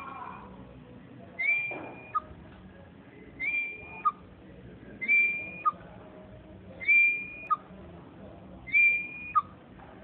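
Pet parrot whistling a repeated two-note phrase: a high note that slides up and holds for about half a second, then a short lower note. It comes about every two seconds, five or six times over.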